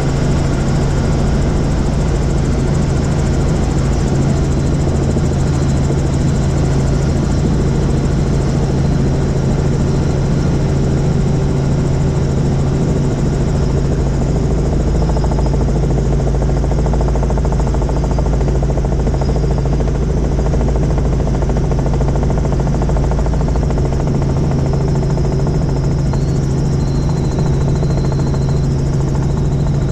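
Tour helicopter in flight: a steady, unbroken drone of rotor and engine with a strong low hum.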